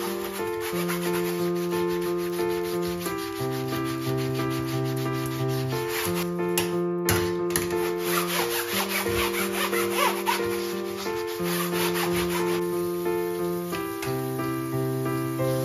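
Rapid, rhythmic scrubbing of a kitchen surface, over soft background music whose sustained chords change every second or two.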